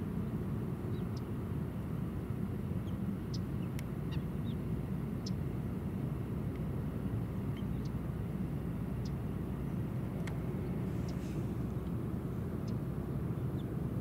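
Steady low rumble of distant traffic, with brief high bird chirps scattered throughout.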